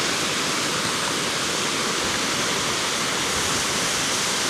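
Moss Force waterfall rushing: a steady, even roar of falling water with no change.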